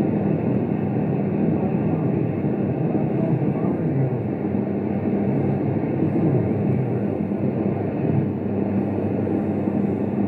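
CB radio receiver tuned to 27.025 MHz, playing steady static and band noise through its speaker, cut off above the voice range.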